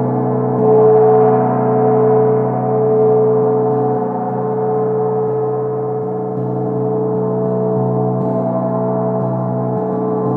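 24-inch Grand Master Turkish Cymbals gong ringing on in a dense wash of held overtones, its strongest tone swelling and fading about once a second: the slow pulsing 'breathing' of a large gong. The sound rises a little about one second and again about three seconds in.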